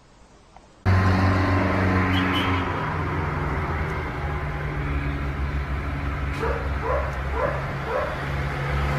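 A steady vehicle engine drone that starts suddenly about a second in. About two-thirds of the way through, a pet gives a quick run of short yipping cries.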